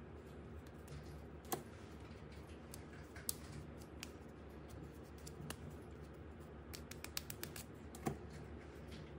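Puzzle toy pieces clicking and tapping as they are handled and fitted together: scattered sharp clicks, with a quick run of them about seven seconds in, over a steady low hum.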